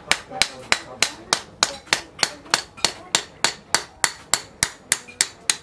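Hand hammer forging a red-hot leaf-spring steel billhook blade on a small anvil block: a steady rhythm of a little over three blows a second, each with a short metallic ring.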